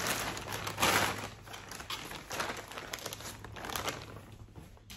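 Thin plastic shipping mailer bag crinkling and rustling as it is handled, loudest about a second in and dying down near the end.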